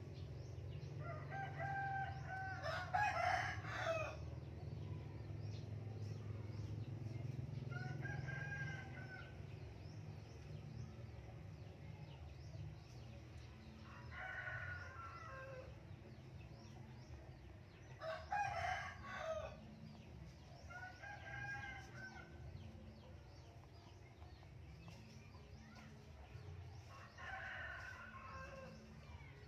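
A rooster crowing about six times, each crow one to three seconds long and spread out every few seconds, the loudest near the start and about two-thirds through, over a steady low hum.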